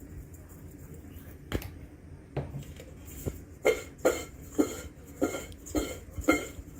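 Fries being seasoned in a stainless steel mixing bowl: a few single clicks, then from about halfway a steady run of sharp shaking strokes, about two a second.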